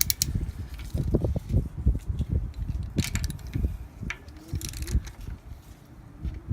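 Wind buffeting the microphone in irregular low gusts, with a few sharp clicks and knocks of a socket wrench on the nuts of the tractor's oil filter housing.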